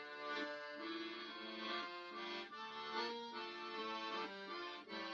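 Accordion playing a tune, with held chords under a melody that changes note every half second or so.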